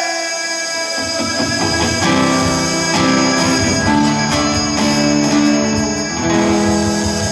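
Acoustic guitar played solo: picked melody notes over low bass notes. A held sung note dies away in the first second.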